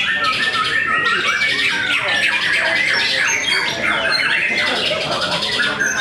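Many caged white-rumped shamas (murai batu) singing against each other in a singing contest: a dense, unbroken chorus of overlapping rapid notes and whistles.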